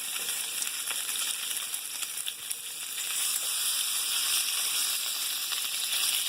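Bacon sizzling in a frying pan: a steady hiss with small pops and crackles, getting a little louder about halfway through.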